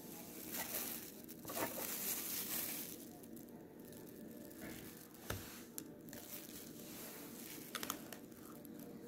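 Plastic food packaging crinkling and rustling as it is handled, with a few light clicks.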